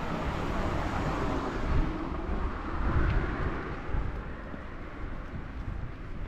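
Wind buffeting the microphone in gusts, with the tyre and engine noise of a passing car on the road swelling over the first couple of seconds and then fading away.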